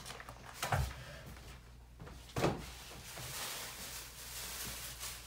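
Two dull knocks about a second and a half apart, then a soft rustling, like objects being handled on a table.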